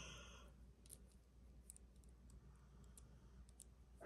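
Near silence with faint, scattered light clicks, a rope chain bracelet being handled and turned over.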